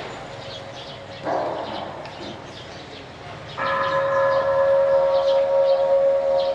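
A steady held horn-like note with a stack of overtones sounds throughout and grows much louder and fuller about three and a half seconds in. A brief noisy swell comes about a second in.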